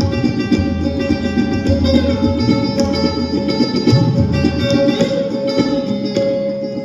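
Hindustani classical instrumental music: sitar and sarod played in a quick run of plucked notes over a steady drone, with tabla accompaniment. The tabla's bass drum (bayan) sounds in deep strokes, some gliding in pitch.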